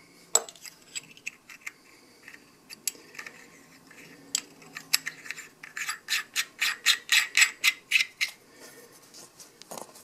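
Knurled brass cap being screwed by hand onto a brass whistle body: a run of short metallic scrapes and clicks from the threads and knurling, sparse at first, then coming about three a second from about the middle, as the cap is turned tight.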